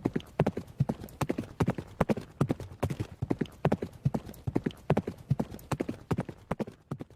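Horse's hooves clip-clopping in a quick, steady rhythm of several strikes a second as the horse sets off at a brisk pace.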